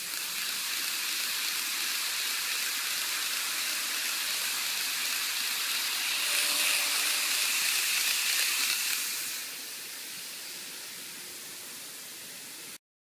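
N-gauge model Shinkansen train running on plastic track, a steady rushing rattle of wheels and motor. It swells for a few seconds in the middle, as the train passes closest, then eases off and cuts off abruptly near the end.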